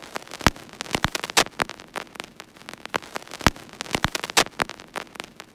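Crackling static: irregular faint clicks and pops over a low hiss.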